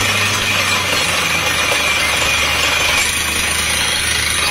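Truck-mounted water well drilling rig drilling with a down-the-hole air hammer, cuttings blown out of the hole by compressed air. A loud, steady din of hammering and air over a low engine hum.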